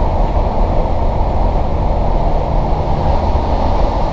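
Steady rumble inside a diesel passenger train running along the track.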